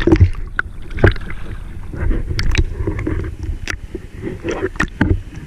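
Swimming-pool water sloshing and splashing right around a camera held at the surface and dipped underwater, with a low churning rumble and irregular sharp splashes.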